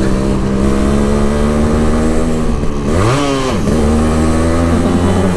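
Yamaha RX135's single-cylinder two-stroke engine under way, running at a steady note. About three seconds in, the revs rise sharply and drop back, then it settles again.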